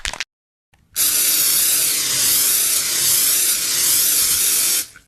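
A few quick clicks at the very start, then about a second in a loud, steady hiss like a spray or steam sound effect that lasts about four seconds and cuts off abruptly.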